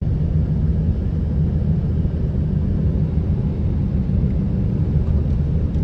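Honda Element driving up a mountain road: a steady low rumble of engine and road noise.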